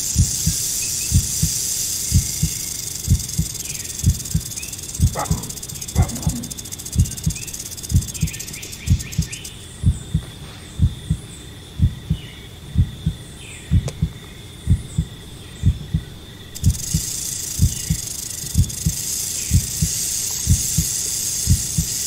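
A steady heartbeat thumps evenly throughout, over the continuous high hiss of a western diamond-backed rattlesnake's rattle. The rattle cuts out for several seconds midway, then resumes. Short high chirps are scattered through.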